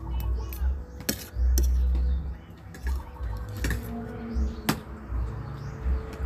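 A metal fork and spoon clinking against a plate while noodles are eaten, with a few sharp clinks spread through. There is a dull low rumble of handling noise about a second and a half in, which is the loudest sound.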